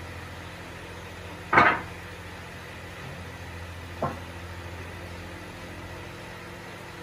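Two knocks, a loud one about one and a half seconds in and a lighter one about four seconds in, over a steady low hum.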